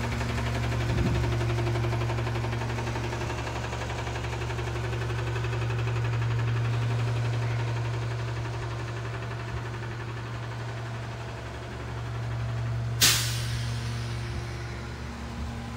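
Diesel engine of a McNeilus rear-loader garbage truck running with a steady low hum as the truck moves along. A short, sharp hiss of air from the air brakes comes near the end.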